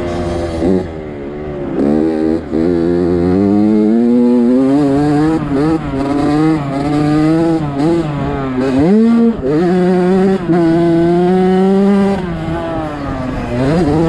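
Onboard sound of an off-road racing engine under hard throttle on a dirt track. Its pitch climbs steadily as it accelerates and drops sharply about two and a half seconds in, around nine seconds and near the end as the throttle is backed off.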